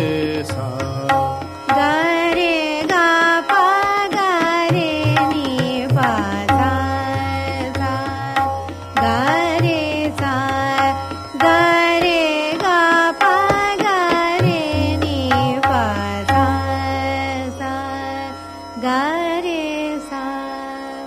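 Hindustani classical music in raag Hamsadhwani: a sung melodic line with gliding ornaments over a steady drone and tabla, in a 16-beat tala at medium tempo. The music fades down over the last few seconds.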